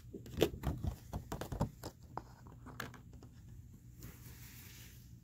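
Cards being handled: a quick run of small clicks, taps and rustles over the first three seconds, then a faint soft brushing sound.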